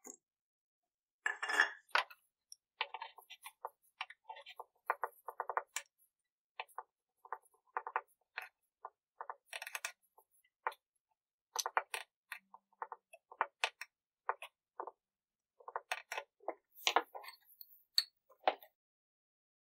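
Light clinks and taps of a small metal tin and its press-on lid being handled, many short irregular strikes, with the lid pressed back onto the tin near the end.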